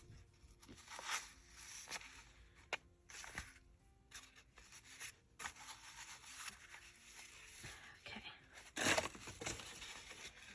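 Paper and lace being handled and folded on a journal page: scattered rustling, crinkling and small taps, with a louder crinkle about nine seconds in.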